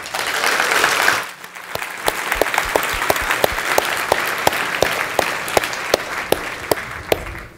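Audience applauding, with many separate claps audible, louder in the first second and dying away near the end.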